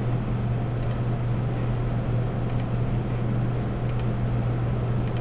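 Steady low hum and hiss of background noise, with a few faint clicks of a computer mouse.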